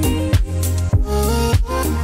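Background music with a steady beat: a low drum stroke a little under twice a second over a bass line and a melody.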